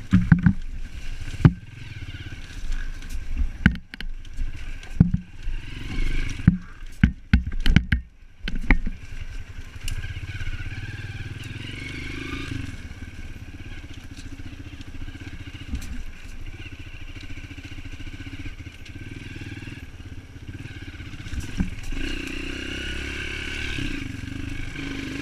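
Off-road dirt bike engine running as it is ridden over rough trail. There are repeated sharp knocks and clatters from bumps over the first nine seconds or so, then steadier running.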